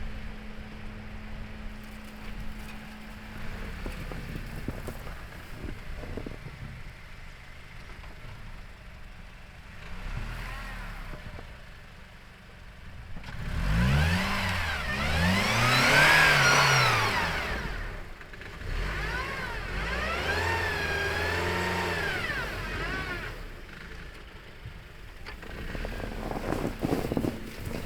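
A car's engine revving up and down in several swells about halfway through, the loudest near the middle, between stretches of quieter low driving rumble.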